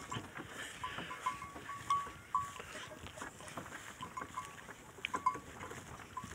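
Donkey-drawn wooden cart on the move, giving many short high squeaks at one pitch at irregular intervals, with scattered clicks and knocks.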